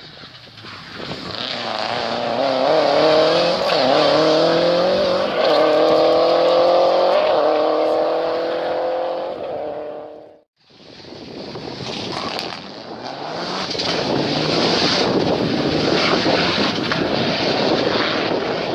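Rally cars at full throttle on a tarmac special stage: one engine climbs in pitch with sudden drops at each upshift. About halfway through, after a cut, the next rally car approaches, growing louder.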